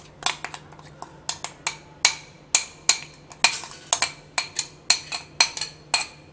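Metal spoon clinking against a glass bowl, about three sharp clinks a second with a short ring, as thick yogurt marinade is scraped out of the bowl.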